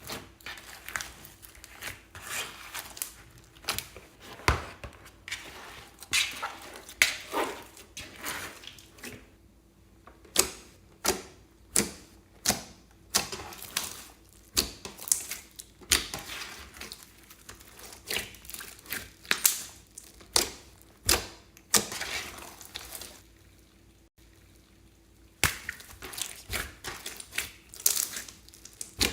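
Slime being squished and kneaded by hand, giving irregular runs of sticky pops and crackles with a couple of brief pauses.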